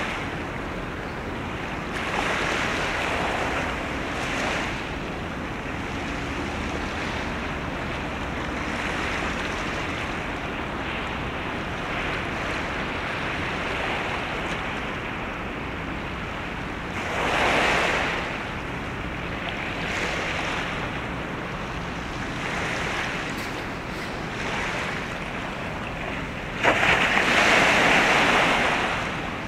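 Steady wind and water noise, with waves washing in a few times, the loudest swell starting suddenly near the end.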